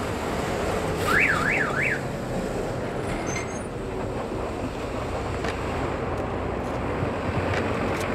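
Busy street traffic: cars driving past with a steady rush of engine and tyre noise. About a second in, a short electronic warble sweeps up and down three times, like a car alarm.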